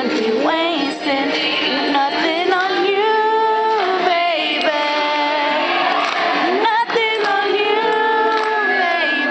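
Girls singing a melody with long held notes, voices ringing in a large gym.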